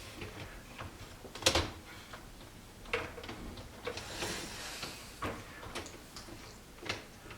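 Plastic clicks and knocks of a dishwasher's upper rack and its basket height adjuster being fitted into place, with a sliding scrape around the middle. The sharpest click comes about a second and a half in.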